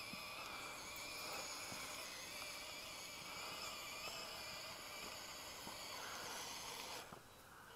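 Electric motor and gears of a 1/16-scale Fayee 4WD RC rock crawler on snow tracks, a faint whine that wavers in pitch as it drives. It drops away suddenly about seven seconds in.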